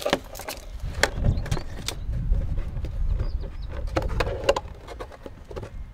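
A thin plastic RC truck body being handled and pressed onto its chassis, giving scattered clicks and taps. A low rumble of wind on the microphone runs under it from about a second in until near the end.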